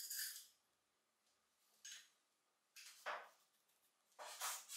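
Handling noises of a small aluminium nail-gun magazine: a few short sliding, rubbing scrapes of metal against hands and cloth, with near silence between them.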